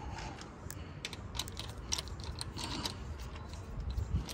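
Light, irregular clicks and taps of small metal parts and tools being handled while an engine is being assembled, several small clicks a second.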